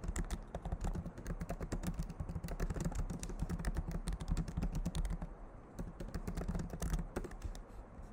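Typing on a computer keyboard: a fast run of keystrokes that thins out to a few separate key presses in the last few seconds.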